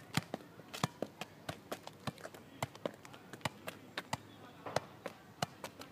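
Football being juggled: quick, irregular taps of the ball off feet and knees, several a second.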